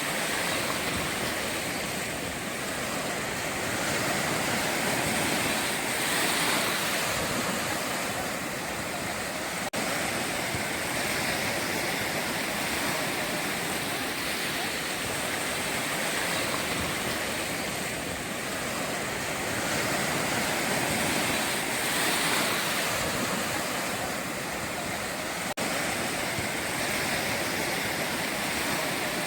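Ocean surf washing onto the shore: a continuous rush of breaking waves that swells and eases every few seconds. The sound drops out for an instant twice.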